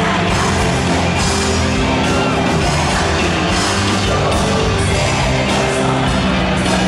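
A woman singing a pop song live into a microphone with a full band, recorded from within the audience.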